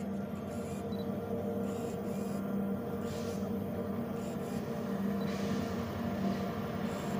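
Diesel locomotive approaching out of sight: a steady engine drone that slowly grows louder, with a few faint high squeaks.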